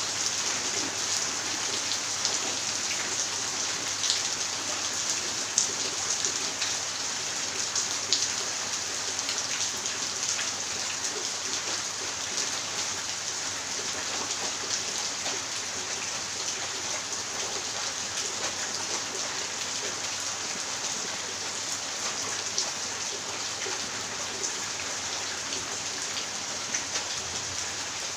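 Steady rain falling on a wet concrete yard and plants, an even hiss with a few sharper drop taps standing out in the first several seconds.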